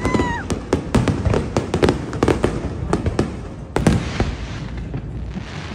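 Fireworks going off: a quick run of sharp bangs, two or three a second, with a bigger bang a little under four seconds in followed by a crackling hiss.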